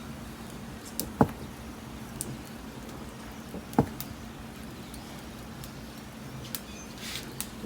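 Wood and charcoal fire crackling: scattered sharp pops over a low steady hum, with two louder, deeper pops about a second in and a little before the four-second mark.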